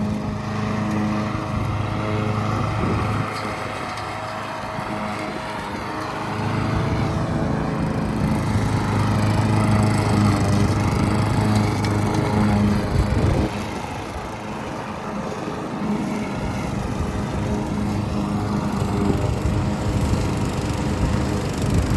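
An engine running steadily, its loudness swelling and easing off every few seconds.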